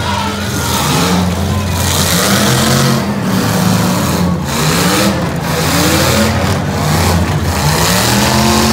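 Demolition derby car engines revving hard again and again, their pitch climbing and falling every second or two, while the cars spin their wheels in the dirt.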